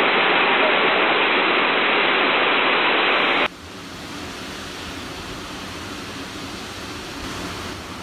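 Loud, steady rush of a waterfall. About three and a half seconds in it cuts abruptly to a much quieter, even rush of the falls.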